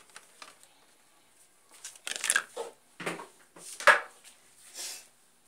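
Kitchen things being handled and set down on a stainless steel counter: a few light clicks, then clattering knocks and scrapes from about two seconds in, the loudest near four seconds.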